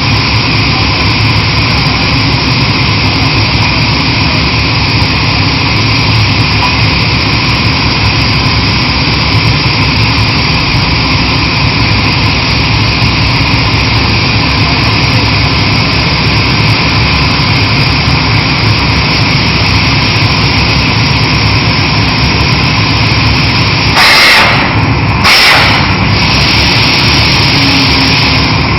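Kaishan KW20 water-well drilling rig running steadily and loudly. Near the end there are two short, loud bursts of hiss about a second apart.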